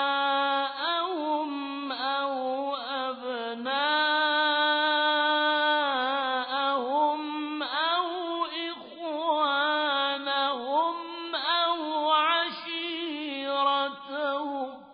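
Quran recitation in the mujawwad (tajweed) style: one voice chanting a melodic phrase of long held notes with ornamented pitch turns. The phrase ends near the end.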